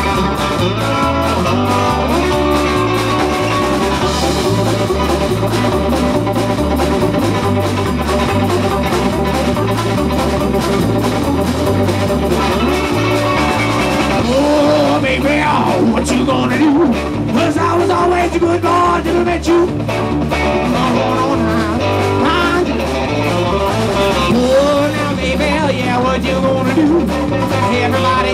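Live blues-rock band playing loud: electric guitars over drums and a steady, repeating bass line, with bending guitar lines from about halfway through.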